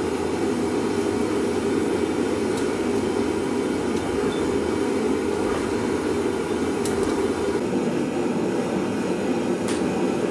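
A forge running with a steady rushing noise, the burner or blower heating the axe head for reforging, with a few faint clicks.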